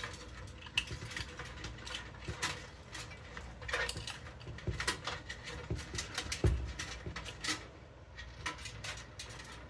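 Irregular clicks, taps and rattles of power supply cables and their plastic connectors being handled and pushed through a computer case, with one heavier thump about six and a half seconds in.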